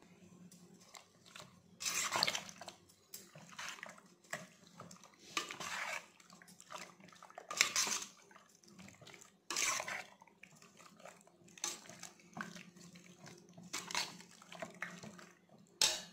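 Steel spoon mixing raw fish pieces into a wet spiced marinade in a stainless steel bowl: irregular squelching strokes every second or two, with a sharper, louder stroke near the end.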